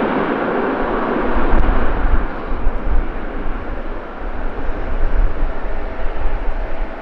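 Jet airliner passing: a loud, even rush of engine noise that eases off about two seconds in, leaving a low rumble that comes and goes.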